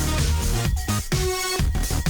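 Electronic dance music with a heavy bass and synth notes, some gliding down in pitch.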